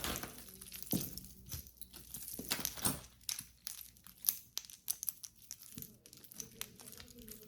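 Plastic bag crinkling and rustling in irregular crackles as jewelry is handled and taken out of it.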